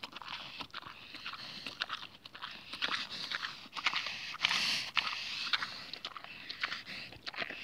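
Wild boar grazing right at the microphone: grass tearing and crunchy chewing made of many quick, irregular clicks, with a louder burst of noise about four and a half seconds in.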